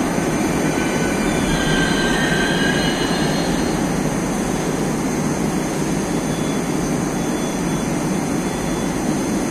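Moscow Metro train pulling in along the platform and braking to a stop, a steady rumble with a faint high squeal in the first few seconds.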